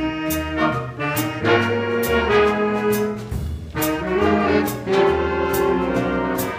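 A school jazz big band playing, with the brass section holding chords over a bass line and regular cymbal strokes, about two a second.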